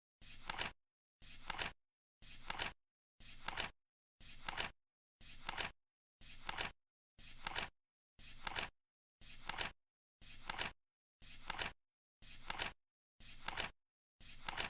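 Flip-clock timer ticking over once a second, about fourteen flips in a row: each a short rustling flip that swells to a sharp click and stops dead.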